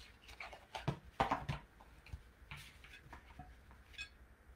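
Faint scattered clicks and light taps of painting supplies being handled while the brush is reloaded with paint, with a small cluster about a second in and single ticks later.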